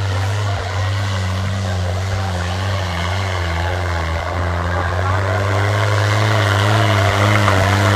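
Diesel tractor engines held at full throttle and labouring under heavy load in a tractor tug-of-war, a deep steady drone whose pitch wavers slightly.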